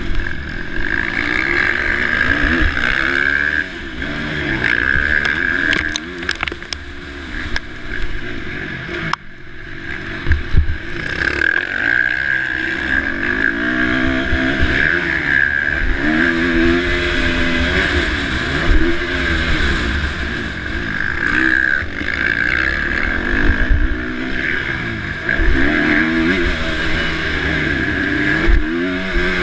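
KTM 350 SX-F single-cylinder four-stroke motocross engine revving up and down again and again as it is raced, with a few sharp knocks, about six and ten seconds in. Just after nine seconds the sound drops away for a moment.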